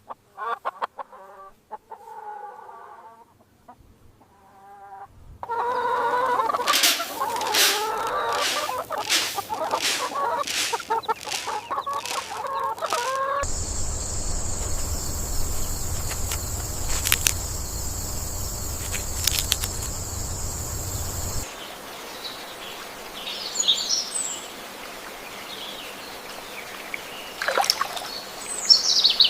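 Chickens clucking: short pitched calls, soft at first and louder and busier from about five seconds in. Then, for several seconds, a steady high hiss with a low hum, followed by a few scattered chirps near the end.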